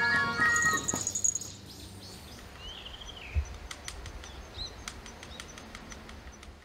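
Music ends about a second in, leaving open-air ambience with a bird chirping a few times and scattered faint clicks. A single low thump comes about three and a half seconds in.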